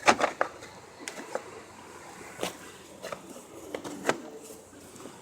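Irregular clicks and knocks of a plastic engine-bay part being handled and pushed into place, loudest right at the start and again about four seconds in.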